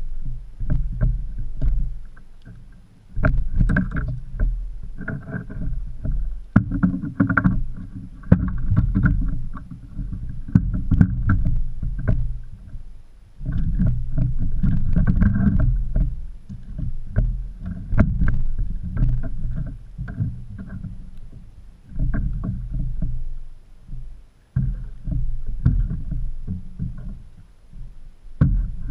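Irregular bumps, knocks and low rumbles on a plastic fishing kayak's hull and deck as gear and a landed mahimahi are handled aboard, with scattered sharp clicks.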